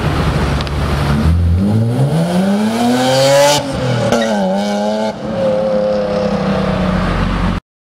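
BMW M Roadster's S50B32 3.2-litre straight-six pulling away from low revs: the engine note climbs steadily in pitch, drops at an upshift about three and a half seconds in, rises again and settles after a second shift. The sound cuts off abruptly near the end.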